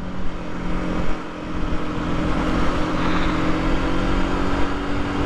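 Aprilia RS 125's single-cylinder four-stroke engine running steadily at cruising speed, under a constant rush of wind and road noise.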